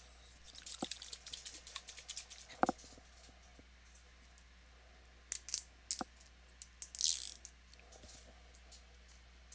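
Faint scattered clicks and taps from fingers handling a hot sauce bottle and picking at its cap, with a brief crinkly rustle about seven seconds in.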